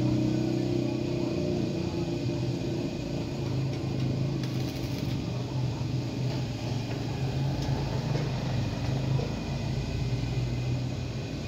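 Stick (arc) welding on a small steel piece clamped in a vise: a steady crackling hiss from the arc over a constant low hum.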